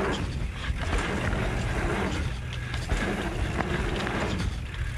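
Mountain bike ridden down a dirt jump trail: wind rushing over the camera microphone with a steady low rumble, tyres on dirt, and scattered clicks and rattles from the bike over the bumps.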